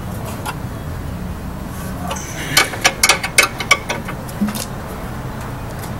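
Ratchet wrench on the caliper bracket bolts of a rear disc brake, giving a quick run of sharp metallic clicks between about two and four seconds in, over a steady low hum.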